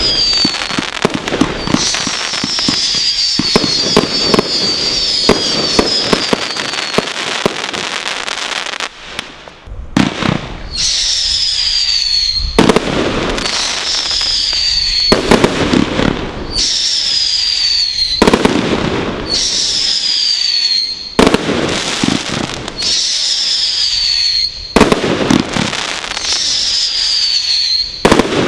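Brothers Pyrotechnics Godfather firework display kit going off. First a dense stretch of crackling and popping. From about nine seconds in, shots fire every two to three seconds, each followed by a high whistle falling in pitch and crackling bursts.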